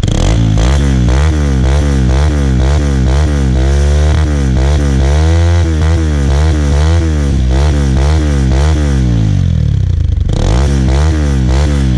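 Bajaj Pulsar NS200 single-cylinder engine revved at a standstill through an aftermarket SC-style open muffler with its silencer insert fitted: quick throttle blips about twice a second, a longer held rev about midway, and a brief sag in revs near the end before the blipping picks up again.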